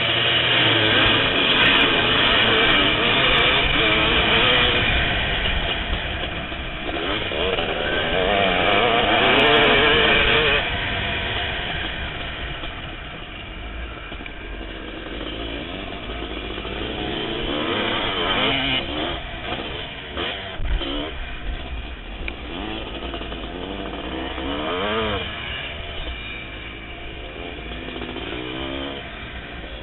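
Kawasaki KX500 two-stroke single revving hard among a pack of motocross bikes at a race start. The engine note is loudest for the first ten seconds or so, then drops back, rising and falling in pitch several times as the bike is ridden round the track.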